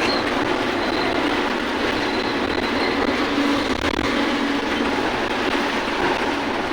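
Heavy rain pouring down, a steady, even rush without a break.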